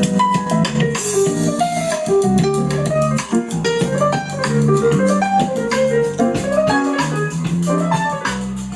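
Instrumental music with a plucked melody, a steady bass line and drums, played loud through a PA amplifier and loudspeakers for a sound check.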